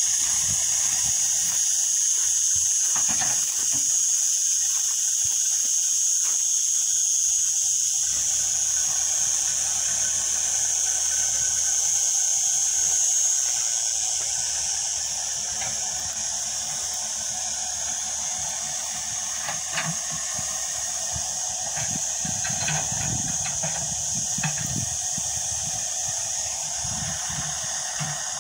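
A loud, steady high-pitched hiss that eases off about halfway through, with faint low rumbling and a few small knocks in the second half.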